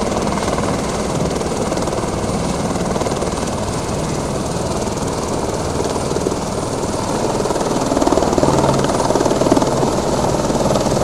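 Eurocopter AS350 B3 Écureuil helicopter running close by: a steady, loud rotor chop and turbine noise that grows louder about eight seconds in.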